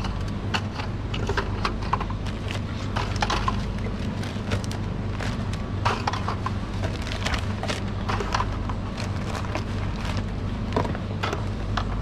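Irregular clicks and knocks of drink bottles being handled and set onto fridge shelves during restocking, a few per second, over a steady low hum.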